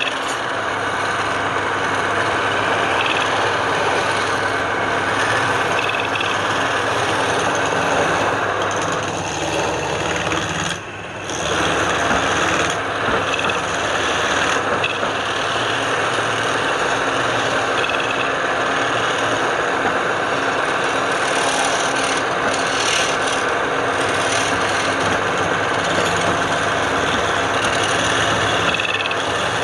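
Wood being cut or sanded against a turning piece on a running woodturning lathe: steady scraping and rubbing over the machine's hum, with a brief let-up about eleven seconds in.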